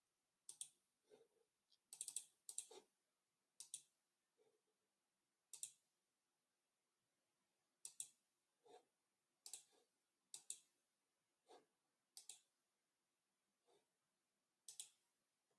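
Computer mouse clicking: faint, sharp clicks at irregular intervals, some single and some in quick pairs.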